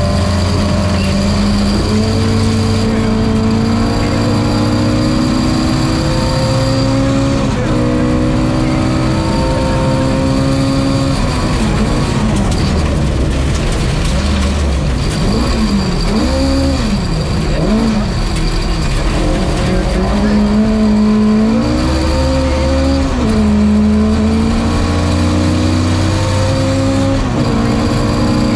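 Ford Escort MK2's Cosworth BDG twin-cam four-cylinder rally engine, heard from inside the car, pulling hard through the gears. The revs climb in each gear and drop at each upshift, dip and rise quickly several times around the middle, then climb through the gears again.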